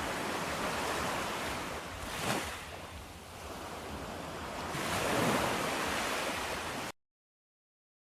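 Rush of surf swelling and easing as waves break, then cutting off abruptly to silence about seven seconds in.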